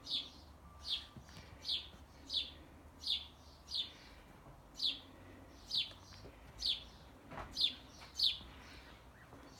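A small bird calling over and over: short, high chirps that sweep downward, about three every two seconds at a very even pace.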